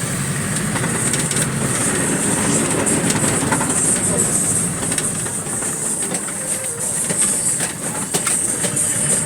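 Road noise inside a moving vehicle: a steady low rumble and hiss with many small rattling clicks.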